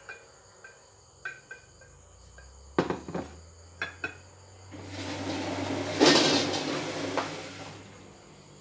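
A ceramic plate being set down and handled on a wooden table: a string of clinks and knocks, the loudest cluster about three seconds in. Then a few seconds of rustling noise close by, loudest about six seconds in.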